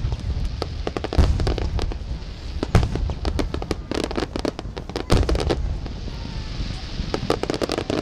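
Aerial fireworks finale: rapid, irregular shell bursts with deep booms, over continuous crackling.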